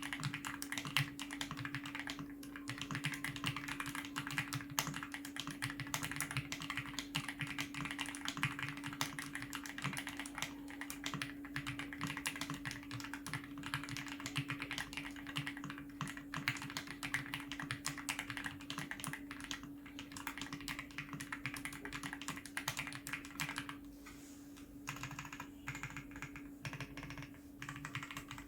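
Typing on an RK R65 gasket-mounted 65% mechanical keyboard with RK Chartreuse switches and double-shot PBT XDA keycaps: fast, continuous keystrokes that thin out to slower, separate presses near the end.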